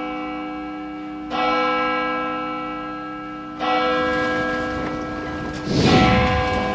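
A large bell struck twice, a little over two seconds apart, each strike ringing on with many overtones. A short whoosh comes about six seconds in.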